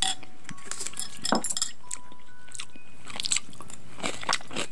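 Close-up eating sounds: a spoon clinking against a bowl of rice soaked in cold barley water, and crunchy bites and chewing of kimchi, as scattered short clicks with a few brief rings.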